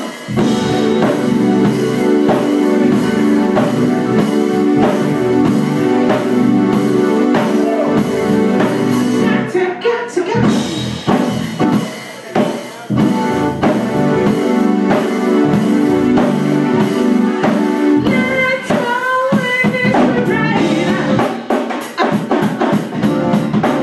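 Live band playing in a small club: a drum kit keeping a steady beat under keyboard, with a woman singing.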